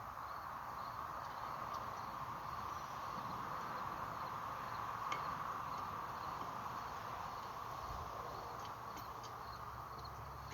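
Steady chirring of insects such as crickets, with a few faint clicks.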